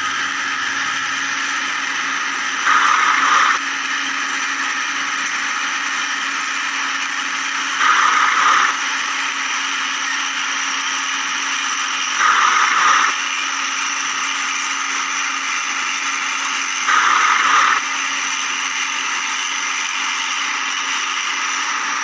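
Small electric gear motors of a toy remote-control excavator whining steadily as the arm and bucket dig sand, growing louder and harsher four times for about a second each, some four to five seconds apart.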